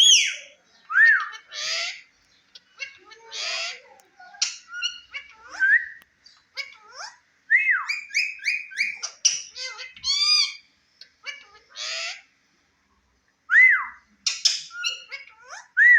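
Indian ringneck parakeet calling: a run of short up-and-down whistled notes mixed with harsh squawks and chattery calls, in quick bursts with short pauses.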